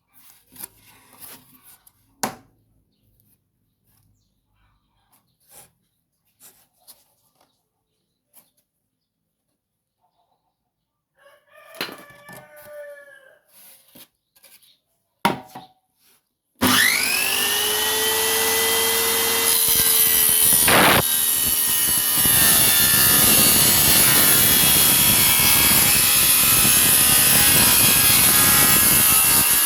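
About seventeen seconds in, a table saw built from a circular saw with a 7-inch, 24-tooth blade switches on suddenly, its whine rising as the blade spins up, then runs loud and steady while cutting wood. Before that there are only a few light knocks.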